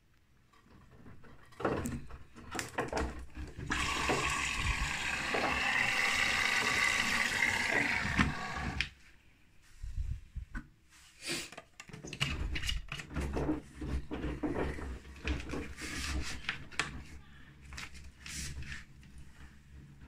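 Bosch front-loading washing machine: after a few knocks, water rushes in steadily for about five seconds, then stops. After that the drum turns with the wet laundry, giving irregular knocks and clatter over a low hum.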